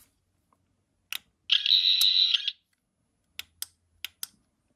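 Character Options 14th Doctor sonic screwdriver toy: a button click, then a high-pitched electronic buzzing sound effect of about a second from its small speaker, followed by four quick clicks of its button.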